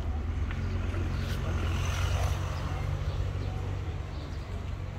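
Street traffic: a vehicle passes, swelling about two seconds in and then fading, over a steady low rumble.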